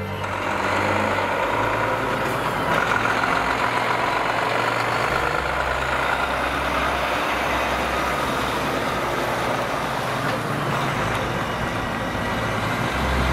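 Heavily loaded Volvo tractor unit's diesel engine running steadily as the truck pulls slowly away, towing a large steel tank on a low-loader trailer.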